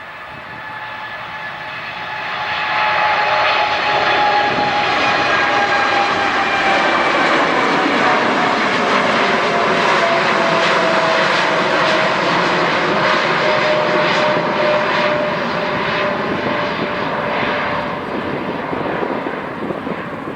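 Jet airliner engines passing close by, a loud roar that builds over the first few seconds and holds, with the engines' whine falling slowly in pitch as the aircraft goes past.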